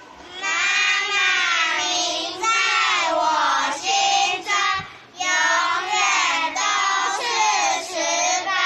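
A group of children singing together in phrases, with short breaks between them.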